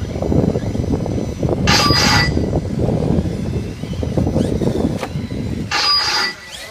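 Electric short-course RC trucks racing on a dirt track under a loud, steady low rumble. Two short high-pitched whines rise out of it about two seconds in and again near the end.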